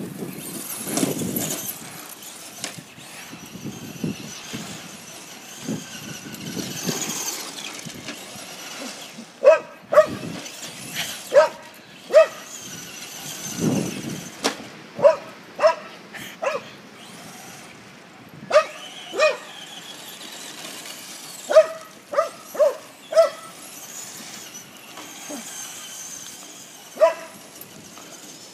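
A small dog barking excitedly in short, sharp, high barks, in quick clusters from about nine seconds in, while chasing a radio-controlled Traxxas Slash truck. Before the barking starts and between the barks, the RC truck's motor whirs.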